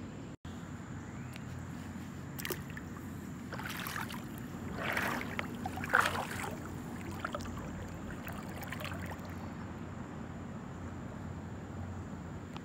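Pool water sloshing and splashing close by in irregular bursts, loudest about six seconds in, over a steady background hum.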